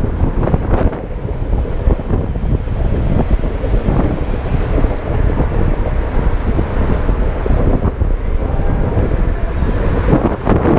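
Wind buffeting the microphone of a camera on a moving bicycle, a loud steady rumble; the higher hiss underneath fades about halfway through.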